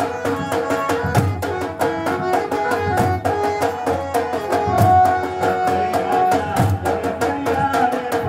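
Garba music for Navratri circle dancing: fast, steady drumming under a melody line with long held notes, one held especially long about halfway through.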